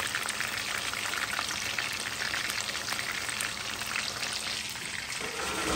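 Batter-coated chicken pieces deep-frying in hot oil, a steady crackling sizzle dotted with many small pops.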